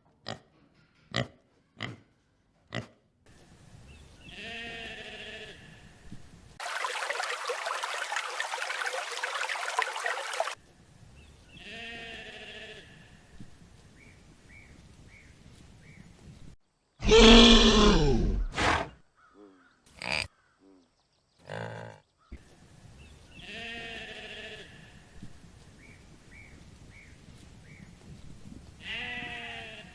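A string of separate animal calls: one short pitched call is repeated about four times, and a loud call with falling pitch comes about 17 seconds in. A few sharp clicks come at the start, and a few seconds of hiss-like noise come early on.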